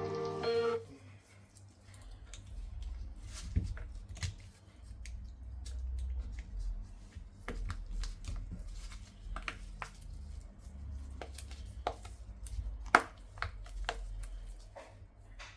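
Small clicks and taps of hands working with tools and phone parts during a phone screen repair, scattered and irregular, a few sharper than the rest, over a low hum. Background music ends under a second in.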